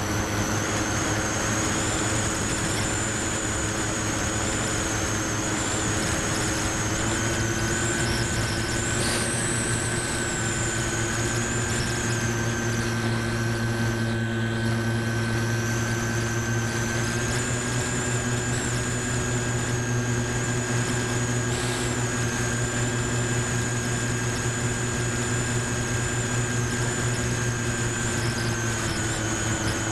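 Electric motor and propeller of a Multiplex Moviestar RC plane in flight, heard from its onboard camera: a steady hum with a high whine over rushing air noise. The pitch shifts slightly a few times as the throttle changes.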